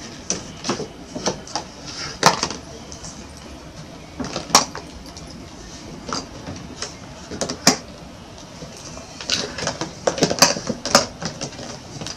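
Irregular clicks and knocks of hollow plastic play balls and a small cardboard box being handled and grabbed at, with a quick cluster of clicks about nine to eleven seconds in.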